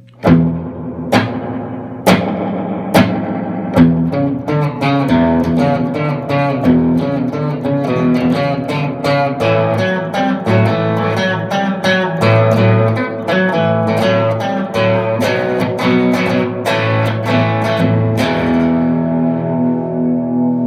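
Electric guitar played through a two-knob spring reverb pedal: a few strummed chords about a second apart, then a busier riff of picked notes over bass notes, ending on a chord left to ring.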